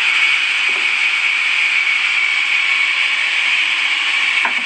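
Sawmill saw cutting through wood: a steady, even hiss.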